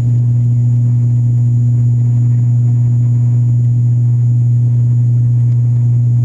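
ATR 72-500's Pratt & Whitney PW127 turboprop and six-bladed propeller droning in the cabin during the climb after take-off: a loud, even low hum with a fainter tone an octave above, holding steady throughout.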